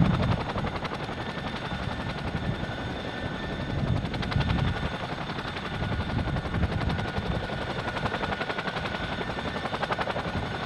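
CH-47 Chinook helicopter flying away, its tandem rotors giving a rapid, even beat. The sound fades within the first second, then holds as a steady distant pulsing.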